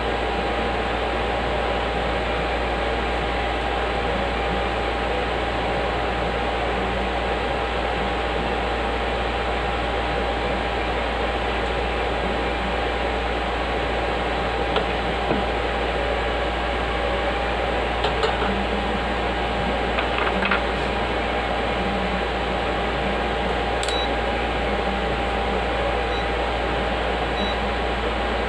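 Steady fan noise with a constant hum tone running under it, and a few light clicks in the second half.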